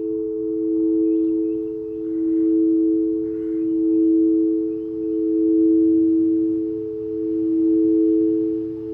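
Singing bowls sounding two steady, pure sustained tones together, swelling and fading in a slow pulse about every second and a half.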